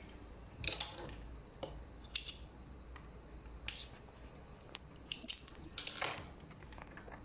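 Cotton fabric being handled and shifted on a sewing machine table, making several short, crisp rustles and light clicks a second or so apart over a faint steady low hum.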